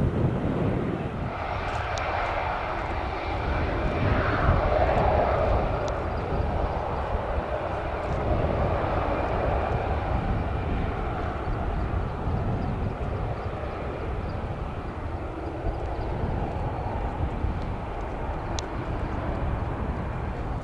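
Boeing 737 jet engines running loud and steady as the airliner rolls along the runway, with a rise in power about a second in. A low rumble runs underneath.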